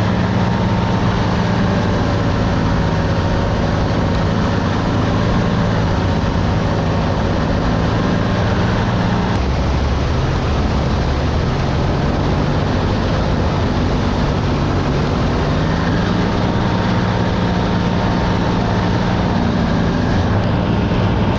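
Paramotor engine and propeller running steadily in flight, with a constant rush of air. About nine seconds in the engine note drops lower, and it climbs back to its earlier pitch some six seconds later.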